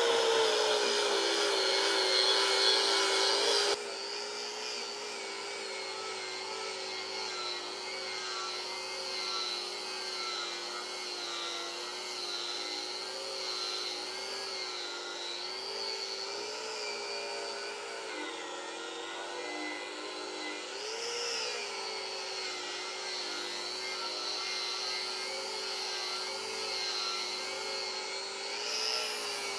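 Electric angle grinder with a wire wheel running steadily as it scrubs rust off a rusty metal bandsaw table. Its whine sags and recovers in pitch a few times as the wheel is pressed and eased off the surface, and it gets quieter about four seconds in.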